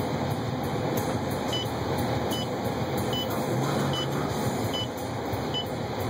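2012 Subaru WRX's turbocharged flat-four engine and its tyres in snow, heard inside the cabin as a steady drone while the car moves. A short, high in-car beep repeats a little faster than once a second from about a second and a half in.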